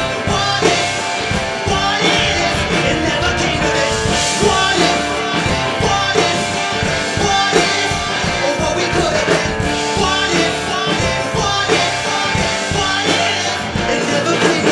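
Rock song played by a full band, with electric guitar, bass and drum kit keeping a steady beat and a man singing lead.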